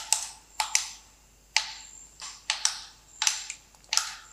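Plastic control sticks of a toy RC truck's handheld remote being flicked, giving a string of sharp clicks about two a second at uneven spacing. No motor answers, as the truck's batteries are flat.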